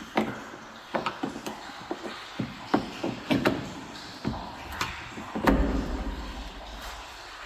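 Irregular clicks, taps and knocks of a car door lock and its parts being handled and fitted inside the door, with a heavier dull thump about five and a half seconds in.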